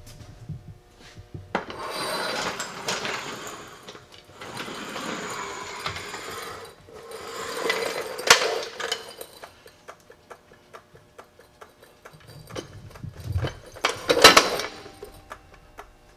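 Steel floor jack rolled across a concrete floor and slid under the truck, its wheels and frame rattling in long stretches through the first half. Scattered clicks and knocks follow, with one loud knock a couple of seconds before the end as the jack is set under the lower control arm.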